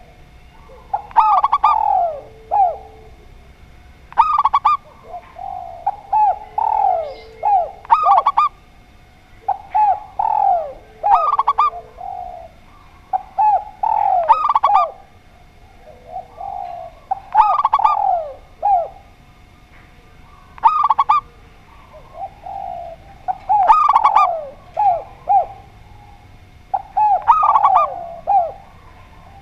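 A spotted dove and a zebra dove cooing in repeated phrases about every three seconds. The phrases mix higher quick coos with low, drawn-out notes.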